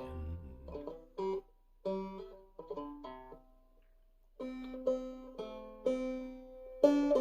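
A five-string banjo in eCGCD tuning, played clawhammer style. A short phrase is picked out slowly, note by note, with a pause of about a second in the middle.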